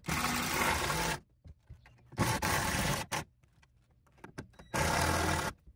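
Power drill driving screws into a 2x4, three bursts of about a second each with short pauses between.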